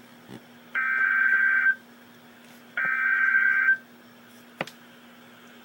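Emergency Alert System SAME header: two bursts of shrill digital data tones, each about a second long and a second apart. These are the repeats of the coded header that opens a severe thunderstorm warning. A faint steady hum runs underneath, and there is a single click near the end.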